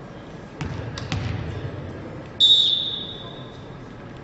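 A referee's whistle blows one long high blast, fading away after a second or so, which in volleyball gives the server the signal to serve. A few sharp knocks of a volleyball bounced on the hardwood court come before it, in a reverberant hall.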